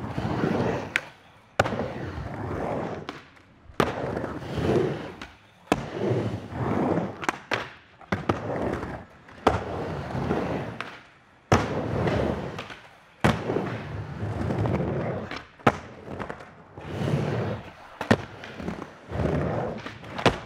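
Skateboard wheels rolling over a wooden ramp, the rumble swelling and fading with each pass up and down the transitions. It is broken by sharp clacks of the board hitting the ramp and coping, about eight in all.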